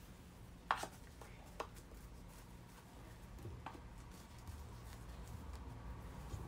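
Faint scraping of a utensil gently folding sponge-cake batter in a bowl, with a few soft clicks, the sharpest under a second in.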